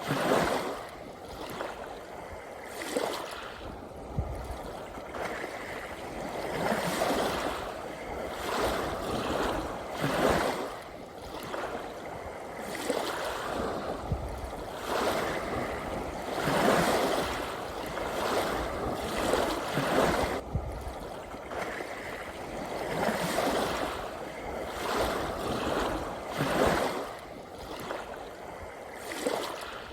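Ocean waves washing on the shore, a steady rush of water that swells and falls back in irregular surges every one to three seconds.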